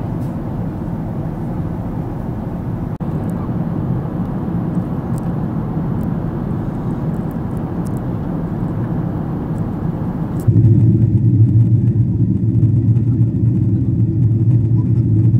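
Steady rumbling cabin noise of a Boeing 777 in flight: engine and airflow noise heard from inside the cabin. About two-thirds of the way through it changes abruptly to a louder, deeper drone.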